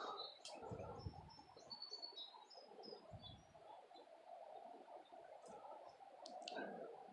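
Faint birdsong: a quick run of short high chirps in the first few seconds, then a few sharp high notes later. Under it are a few soft low thumps and a low background hiss.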